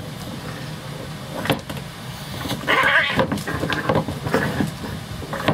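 A Munchkin and a silver Bengal cat fighting: a knock about a second and a half in, then a loud harsh threatening cry around the middle followed by several shorter pitched cries, and another knock near the end.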